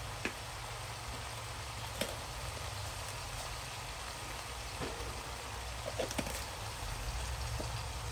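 Whole shallots and chopped garlic frying in oil in a wok: a steady sizzle with a few sharp pops scattered through.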